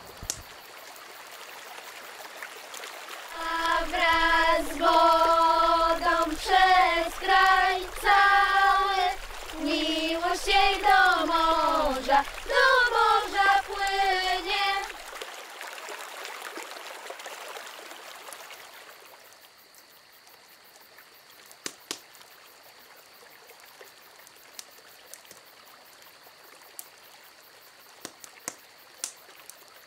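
A voice sings a wordless melody of held, wavering notes for about ten seconds and then fades away. Faint trickling river water with a few scattered drips follows.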